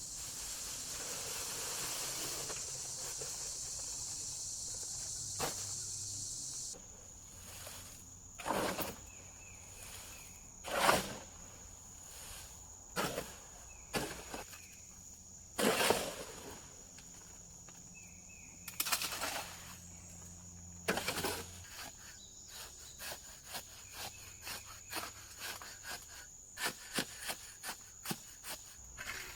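Steady high-pitched insect chorus. A loud band cuts off suddenly about seven seconds in, leaving a thinner, steady, high chirring tone. Scattered knocks and rustles from handling or movement come through it, unevenly spaced.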